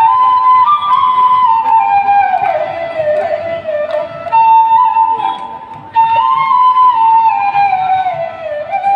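Solo transverse flute playing a slow melody into a stage microphone, in phrases that step gradually downward in pitch, with a fresh phrase starting about four seconds in and again about six seconds in.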